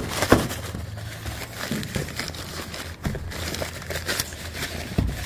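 Packing material crinkling and rustling, with scattered clicks and knocks, as parts are lifted out of a cardboard box.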